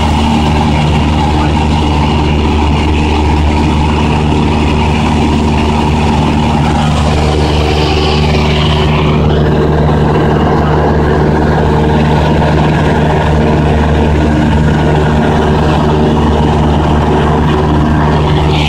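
Cessna 172's piston engine and propeller running steadily at cruise, heard loud inside the cabin, with a constant hum under a layer of airflow hiss.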